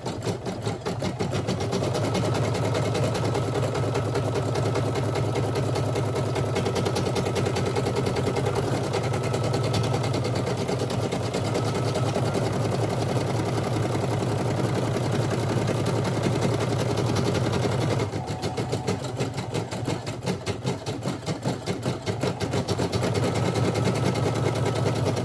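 Brother SE1900 computerised embroidery machine stitching a name into a dog leash, its needle running in a fast, even rhythm of strokes over a steady motor hum. About three-quarters of the way through, the stitching turns lighter and more uneven for a few seconds, then returns to full level.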